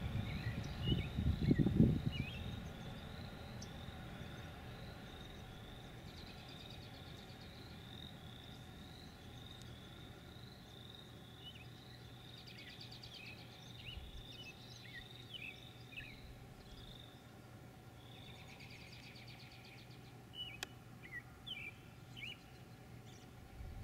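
Field ambience. A high chirp repeats about twice a second until about two-thirds of the way through, with scattered bird calls over it. A low rumble with a few thumps on the microphone fades out in the first couple of seconds.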